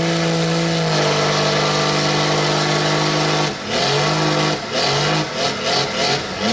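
Pickup truck engine held at high revs at a steady pitch while its tires spin in deep mud. It drops off about three and a half seconds in, revs again briefly, then comes back in quick short blips of throttle near the end.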